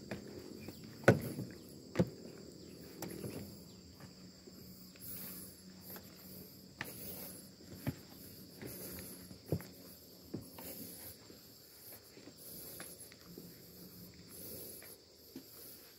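Footsteps knocking irregularly on the wooden planks of a railway bridge walkway, two sharper knocks about one and two seconds in, over a steady high buzz of insects.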